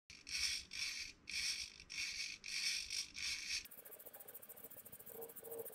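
Servo-driven swinging robot on a stiff steel rod working mechanically: six short raspy bursts about half a second apart, then a faint fast even ticking with a brief low whine near the end.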